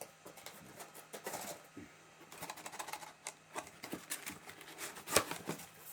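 Cardboard box and its packaging being rummaged through by hand: irregular rustling, crackling and light taps, with a sharper knock about five seconds in.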